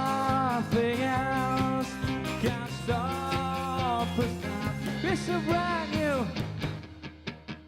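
Rock band music with wordless, wavering melody lines over guitar and drums; about seven seconds in the full band drops away, leaving a sparse run of even, plucked notes.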